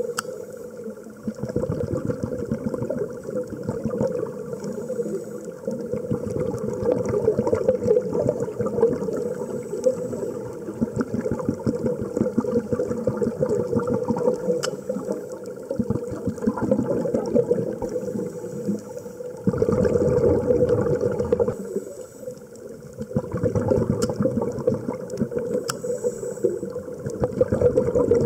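Underwater bubbling and crackling rush of scuba divers' exhaled breath bubbles, swelling and dipping every few seconds.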